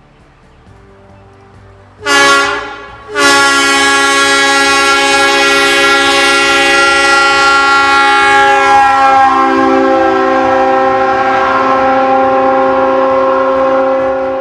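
Train air horn sounding a chord of several notes: a short blast of about a second, then after a brief break a long held blast that fades away near the end.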